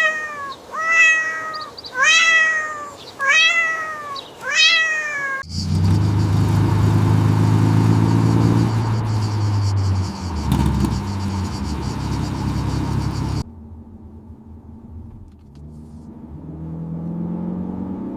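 A cat meows five times, about once a second, each meow falling in pitch. Then a steady, low, engine-like drone runs for about eight seconds and cuts off suddenly. A quieter hum follows and rises in pitch near the end.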